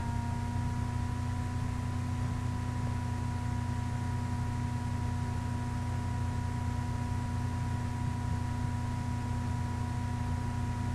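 Steady low machine-like hum with a few faint, steady whining tones above it.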